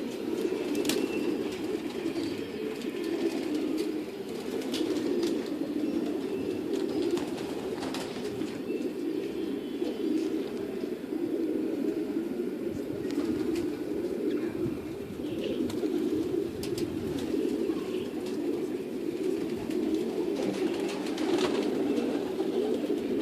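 Many racing pigeons cooing together in an unbroken, overlapping chorus of coos, with a few sharp clicks scattered through it.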